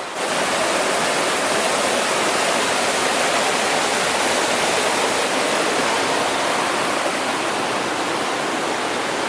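River rapids: a loud, steady rush of fast water tumbling over rocks, starting abruptly at the outset.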